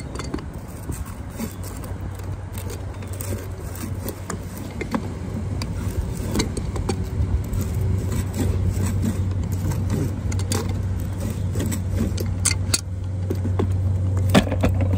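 Channel-lock pliers scraping and clicking against a painted copper pipe, chewing the paint off in irregular strokes. Underneath is a steady low hum that grows louder from about halfway.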